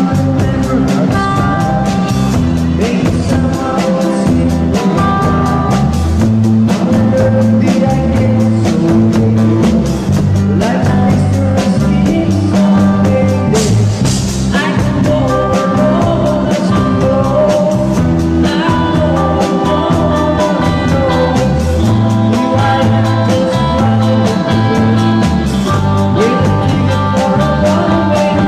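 Live rock band playing a song, led by a drum kit keeping a steady beat with cymbals, while a man sings into a microphone over the band.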